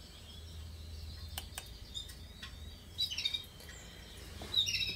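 A pet bird chirping in short high calls, about three seconds in and again near the end, with quick falling notes. Before that, a few light clicks.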